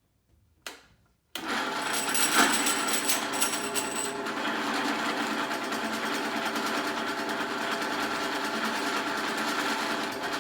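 A drill press spinning the gears of an opened 3000GT/Stealth 5-speed AWD manual transmission in neutral, starting up about a second and a half in after a brief short sound, then a steady whir. There is no chattering: the 3/4 slider is now centered between its synchros after its shift fork was repinned higher.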